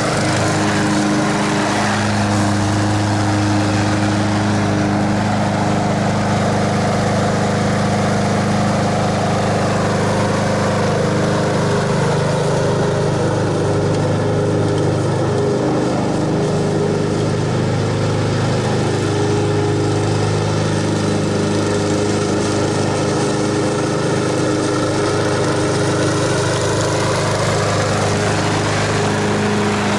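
Honda HRX217 walk-behind lawn mower's engine running steadily while it cuts grass, holding an even pitch without bogging down.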